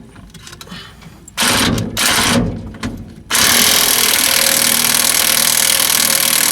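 Impact wrench working the bolt on the differential's pinion flange: two short bursts, then run steadily for about three and a half seconds.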